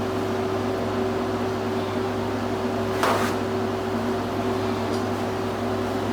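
Steady mechanical hum holding a few fixed tones, like a running fan or air conditioner. About three seconds in, one brief sharp noise cuts through it.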